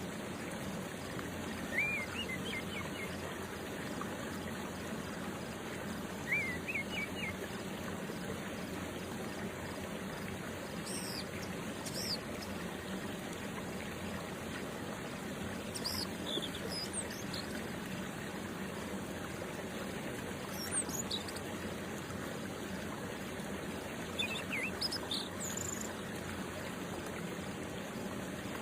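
Steady outdoor hiss with scattered short bird chirps, a few quick rising notes now and then and brief higher calls through the middle and near the end.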